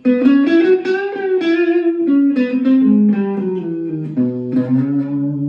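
Electric guitar played through its PRS Dragon II neck humbucker in full humbucker mode: a short melodic run of single notes that steps down in pitch toward the end.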